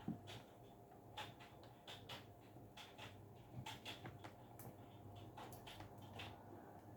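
Near silence with faint, scattered clicks and taps of plastic desk-fan parts being handled, over a low steady hum.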